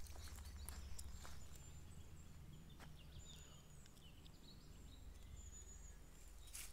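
Faint high chirps of small woodland birds singing, over a low rumble, with a few soft clicks.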